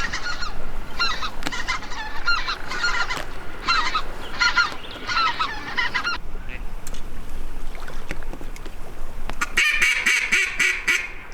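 Geese honking in a run of repeated calls for about six seconds, then a short, fast chattering burst of calls near the end.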